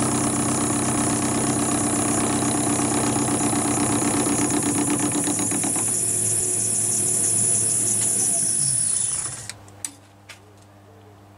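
Metal lathe running as a carbide tool takes a 40 thou cut on the width of a brake axle plate, a steady machine sound with a high whine. About nine seconds in the lathe is switched off and falls quiet, followed by a couple of light clicks.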